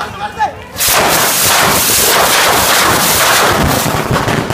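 A firework set off on the ground going off about a second in: a loud, dense, rapid crackle of bangs that keeps going for several seconds.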